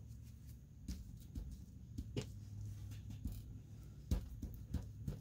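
Hands smoothing glued paper pieces down onto a sheet and rubbing them with a crumpled tissue: soft paper rustles and scattered light taps, the sharpest about four seconds in, over a steady low hum.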